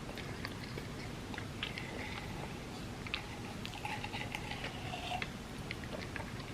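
Close-miked chewing of soft-baked chocolate chip cookie cups layered with chocolate wafers, with many small clicks and mouth sounds.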